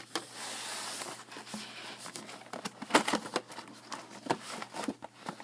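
Plastic wrapping on baseball card packaging being torn open and crinkled: a hissing tear in the first second, then a run of crackles and clicks.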